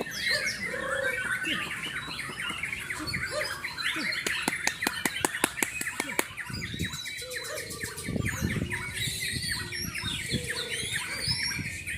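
Several songbirds chirping and calling over one another, many short rising and falling notes, with a fast run of clicks for nearly two seconds a little before the middle.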